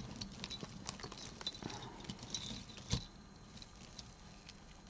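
Faint light clicks and rustling of costume jewelry pieces (beads, chains, earrings) being handled and sorted by hand, with one sharper click about three seconds in.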